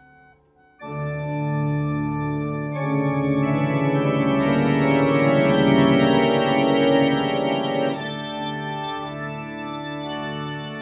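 Antique parlour pump organ (reed organ) played in held chords. It starts about a second in, grows fuller and louder through the middle, and drops softer near the end.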